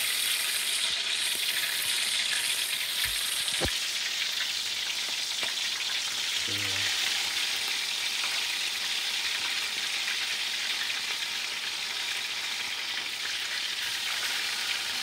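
Pieces of marinated oxtail searing in hot canola oil: a steady sizzle of frying.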